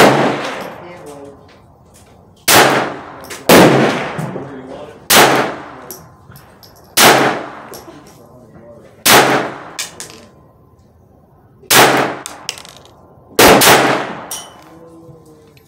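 Glock 44 .22 LR pistol firing slow, aimed single shots: about eight sharp cracks, one to two and a half seconds apart, each with a short ringing tail. The pistol cycles each round without a malfunction.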